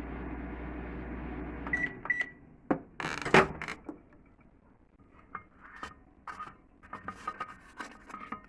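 Microwave oven running with a steady hum that stops about two seconds in, followed by two short beeps. About a second later there is a loud sharp click, then scattered light clicks and knocks.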